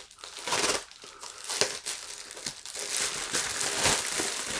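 Thin packaging pouch crinkling and tearing as it is pulled open by hand, in irregular rustles and crackles.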